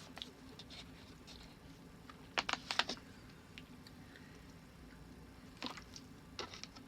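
Small clicks and mouth sounds of someone eating a chocolate praline, coming in a few short clusters.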